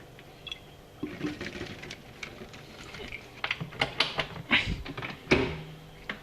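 Irregular clatter of knocks and rattles around a twin-tub washing machine, busier in the second half with one loud knock about five seconds in, over a faint steady hum.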